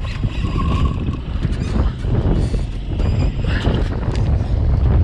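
Wind buffeting the microphone, with water slapping against the hull of a small aluminium boat.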